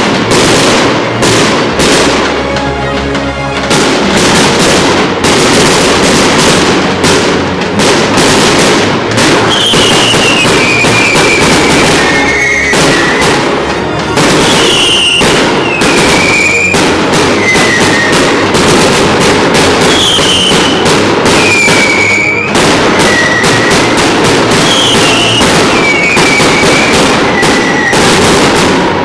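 Fireworks going off in a dense, unbroken barrage of bangs and crackling. A short falling high tone recurs about every two seconds.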